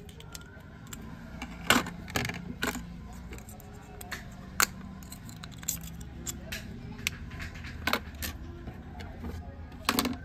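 Scattered clicks and taps of plastic and metal as a Samsung GT-E1215 phone's plastic housing is pried apart and its circuit board handled with steel tweezers. A louder knock comes near the end, when the board is set down on the bench.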